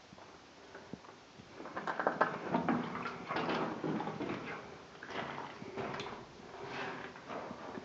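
Irregular scuffing, scraping and knocking of a person clambering over rock in a narrow mine tunnel, louder from about two seconds in.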